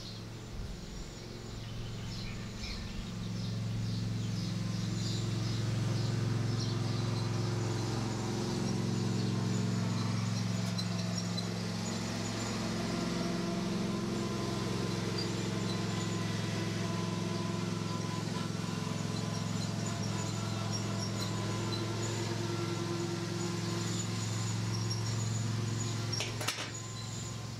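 Steady low hum with faint high bird chirps scattered over it, and a single sharp click near the end.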